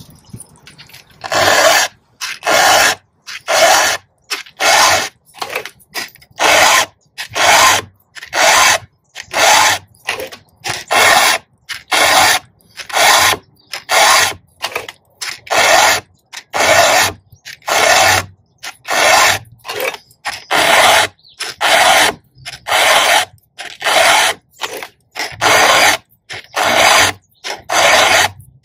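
A round chainsaw file rasping by hand across a saw chain's cutter teeth, in repeated push strokes about one a second, each a short rasp with a brief gap between: the cutters being sharpened.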